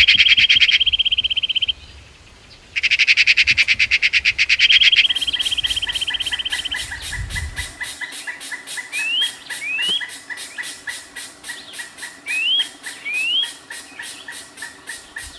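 Wild animal calls: two loud, rapid buzzing trills, the first running into a held high note, then a fast, even pulsing call with short rising chirps, in two pairs, over it.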